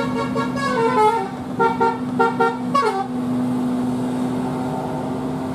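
Bus 'telolet' Basuri multi-tone horn playing a short tune of stepped notes for about three seconds, ending in a quick falling glide. A steady low hum continues underneath and after.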